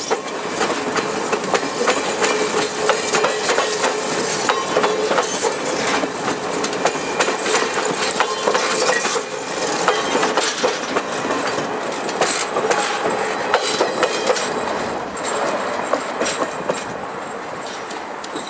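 Passenger railcar wheels rolling past close by, clicking over rail joints in a dense clickety-clack, with a steady whine from the wheels through the first half that fades after about ten seconds.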